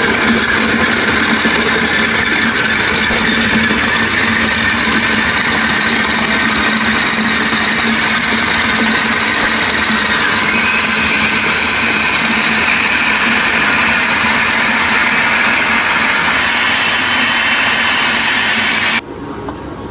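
Electric food processor running, its blade chopping tomatoes and green chillies into a fine masala: a loud steady motor whine that steps up in pitch about halfway through and cuts off near the end.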